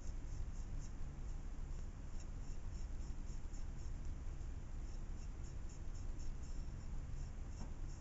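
Small paintbrush scrubbing pigment into egg medium in a ceramic palette well. Soft rhythmic scratching with quick light ticks, a few a second, as the brush works against the porcelain, over a steady low hum.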